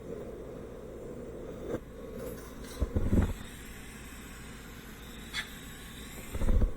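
Steady background hum with a couple of sharp clicks and two low, heavy thumps, one about three seconds in and one near the end.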